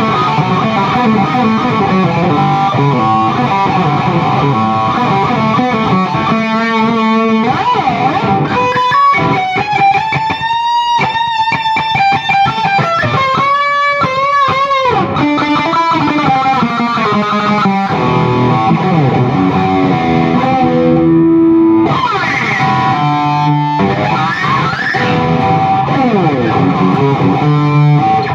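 Distorted electric guitar played through a Zoom G1X Four multi-effects pedal and a Peavey 6505+ combo amp, on a heavily effected patch. The playing runs through riffs, with several bent, wavering notes in the middle and sliding notes near the end.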